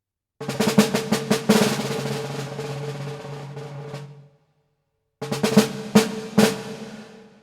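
Tornador Gunz compressed-air cleaning gun running in two bursts, a loud hissing rattle from its whirling tube with sharp knocks, the first burst fading out over a few seconds and the second shorter.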